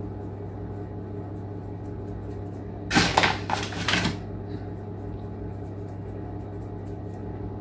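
A steady low hum, with a brief loud clatter about three seconds in that lasts about a second.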